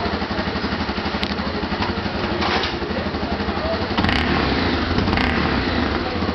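Honda XRE300's single-cylinder four-stroke engine running through a Coyote Roncar 2Way sport exhaust tip, idling with a rapid low pulse. About four seconds in it gets louder and heavier.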